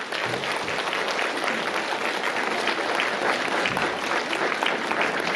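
Concert audience applauding after the song ends, many hands clapping steadily.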